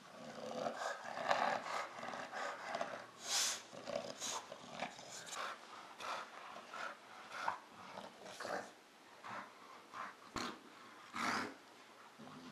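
Bulldog growling in short, irregular bursts while play-wrestling a toy.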